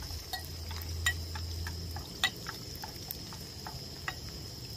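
Onion, ginger and garlic sizzling in hot oil, a steady hiss with scattered crackling pops as they fry until fragrant.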